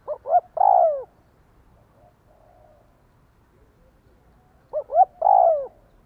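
Spotted dove cooing: two calls about four and a half seconds apart, each two short notes followed by a longer note that slides down in pitch.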